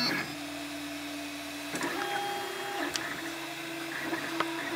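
MakerBot Replicator 2 3D printer running a print, its stepper motors humming as the extruder head traces the part's first outline. The hum holds one pitch, then jumps to another every second or so as the moves change, with a few light clicks.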